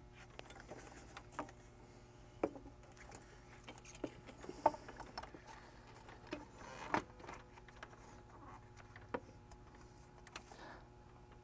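Faint, scattered knocks and scuffs of a steel charge tube and its silicone coupler being handled and set down into an engine bay onto the intercooler outlet, the sharpest knocks about halfway through, over a faint steady hum.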